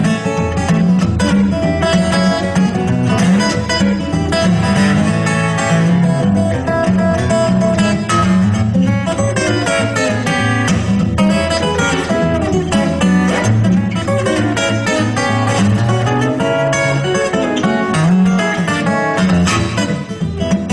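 Background music led by acoustic guitar, steady picked and strummed notes over a moving bass line.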